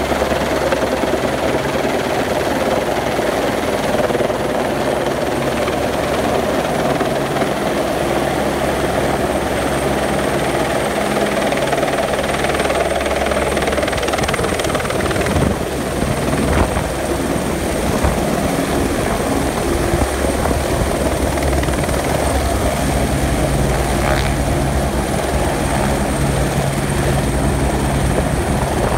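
Eurocopter Écureuil light helicopter hovering and descending to land, its rotor thudding steadily over a continuous high turbine whine.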